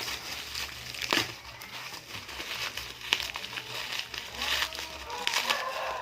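Plastic parcel packaging and bubble wrap crinkling as it is torn open by hand, with scattered sharp crackles and rustles.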